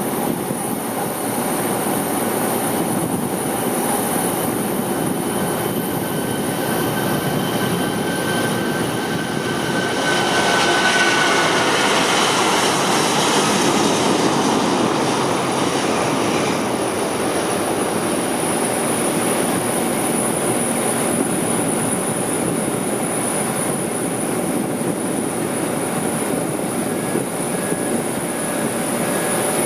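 Jet aircraft engine noise: a steady rush with a faint high whine, swelling for a few seconds about ten seconds in.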